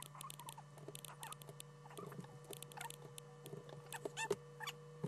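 Quick, irregular clicks of a computer mouse and keyboard, with a few short squeaks, over a steady low hum.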